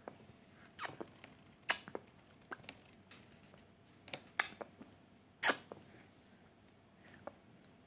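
A baby's mouth smacking and clicking while being spoon-fed puree: a scattered handful of short smacks, the loudest about five and a half seconds in.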